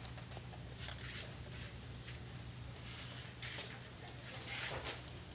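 Shop room tone: a steady low hum with faint, scattered rustling and handling noises.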